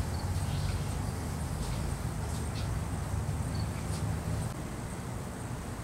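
Low steady rumble that eases a little about four and a half seconds in, with faint crickets chirping high over it.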